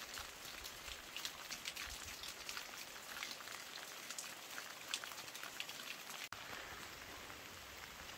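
Light rain falling, with many separate drops landing close by. The sound cuts out for an instant about six seconds in, after which fewer drops are heard.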